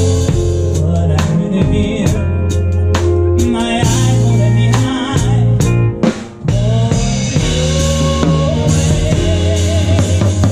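Live band music: a drum kit played with sticks, driving the groove with cymbal and drum hits, over held bass notes and electric guitar. The band stops for a short break about six seconds in, then comes back in.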